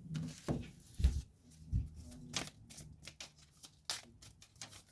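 Tarot cards being shuffled and handled: a quick, irregular run of crisp card riffles and snaps, with a couple of dull thumps about one and two seconds in.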